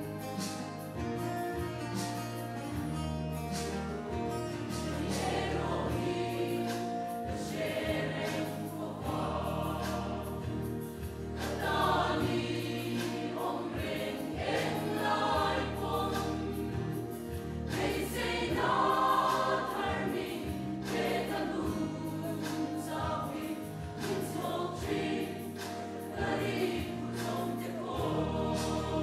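Mixed church choir of women's and men's voices singing a hymn with electronic keyboard accompaniment. The keyboard plays held chords alone at first, and the voices come in about five seconds in.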